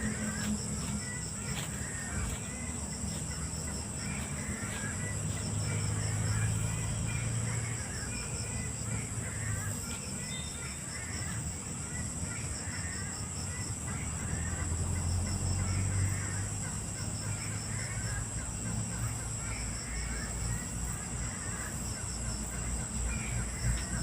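A bird chattering on and on at night in a rapid string of short chirps, over a steady high drone of insects.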